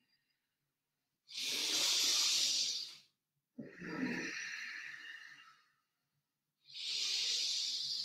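A person breathing deeply and audibly through a yoga pose: three long, hissing breaths, each lasting a second and a half to two seconds, with short silent gaps between.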